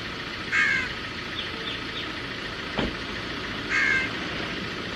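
Crows cawing outdoors: one harsh call about half a second in and another near four seconds, over a steady background hiss, with a few faint higher chirps and one sharp knock near three seconds.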